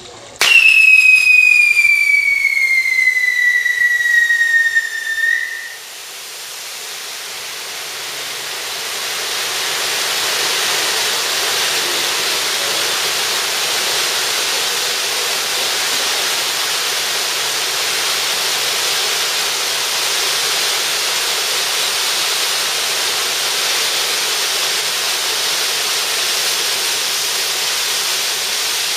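A pyrotechnic whistle goes off about half a second in, one loud whistle falling steadily in pitch for about five seconds. Then stage spark fountains (gerbs) spray with a steady hiss that builds over a few seconds and holds.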